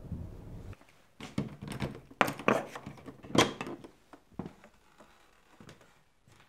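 A key working in a door lock and a metal lever handle being turned: a string of sharp clicks and knocks, the loudest about three and a half seconds in, as the door is unlocked and pushed open.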